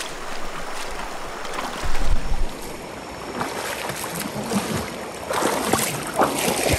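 River water rushing and splashing around the crossing, with a low thump about two seconds in and a few short splashes near the end.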